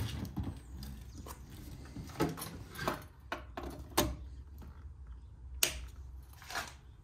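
Handling noise and a series of sharp plastic clicks and knocks as the cable of a Tesla 13 A portable charger is moved and its plug pushed into a wall-socket RCD adapter. The sharpest click comes about two-thirds of the way through.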